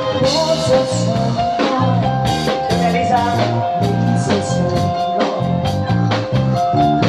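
Upbeat band music with drum kit, a bass line in a steady repeating pattern, and long held melody notes, with some singing.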